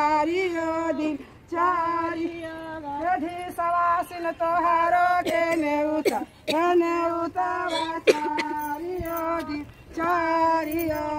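A woman singing a melody in a high voice, phrase after phrase with short breaks between them.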